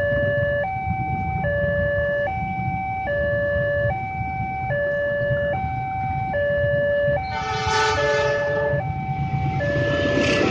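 Railway level-crossing alarm sounding its two-tone warning, alternating between a lower and a higher tone about every 0.8 s. About seven seconds in, a train horn sounds for about a second and a half, and near the end the approaching train's rumble builds under the alarm.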